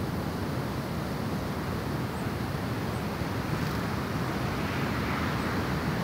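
Wind buffeting the microphone, a steady low rumble that rises and falls unevenly. A few faint, very high chirps come through it.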